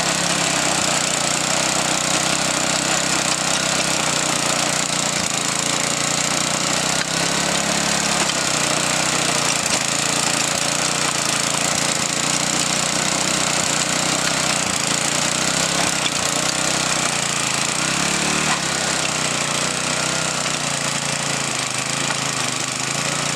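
Single-cylinder gas engine of an Earthquake garden tiller running steadily while tilling, its pitch wavering slightly as the load changes.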